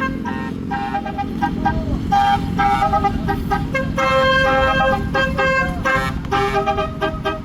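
Telolet horn on a tour bus playing a quick tune of short notes that keep changing pitch, over the rumble of the bus engine.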